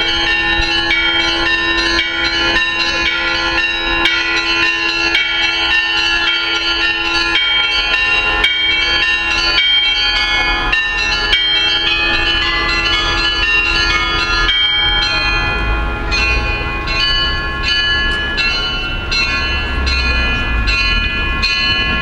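Russian Orthodox church bells ringing a peal (perezvon): rapid, continuous strikes on several small high-pitched bells over a deeper bell whose tone fades out about halfway. A low rumble grows in the second half.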